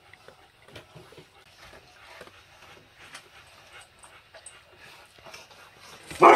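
Alaskan Malamute crunching dry kibble from a steel bowl, with faint scattered crunches and clicks. Just before the end it lets out one short, loud woof.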